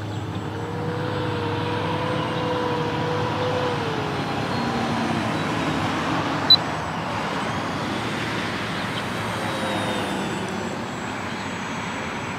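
Twin brushless outrunner motors and propellers of an electric RC P-38 Lightning park flyer whining overhead, the whine wavering and dropping in pitch about four seconds in, over a steady rushing noise. A single sharp click about six and a half seconds in is the loudest moment.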